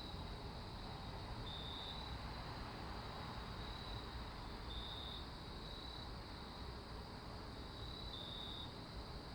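Crickets chirping in short trills every second or two over a steady low background hiss, a recorded nature ambience.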